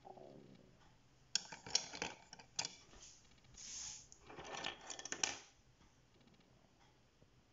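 Wooden Maped Color'Peps coloured pencils clicking and clattering against each other and the tabletop as a hand shuffles through them, in two bursts of light knocks with a short rustle between.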